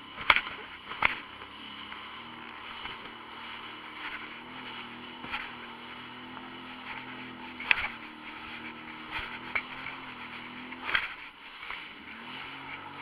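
Aircraft cabin noise in flight: a steady rush of air and engine noise over a low, even engine hum, broken by a few short, sharp clicks and knocks.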